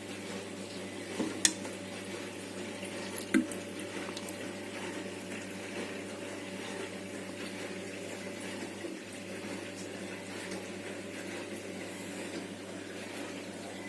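Water being poured onto seedlings in a propagator tray, a steady trickle throughout, with a couple of sharp knocks in the first few seconds.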